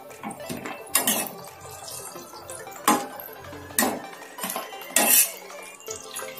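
Steel slotted skimmer spoon clinking and scraping against a kadai while turning and lifting chicken in hot frying oil: four loud sharp clinks about a second apart, with lighter taps between.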